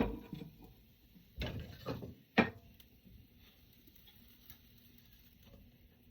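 A sharp knock, a couple of duller bumps about a second and a half in, then a louder sharp knock, after which only faint room noise remains.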